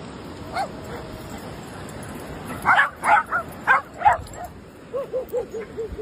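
Dogs barking in play: one bark, then a burst of about five loud barks, then a quick run of short yips near the end.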